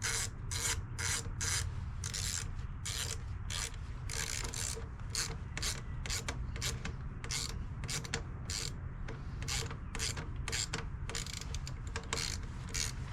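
Hand ratchet wrench clicking in a steady run of short strokes, a few clicks a second, over a steady low hum.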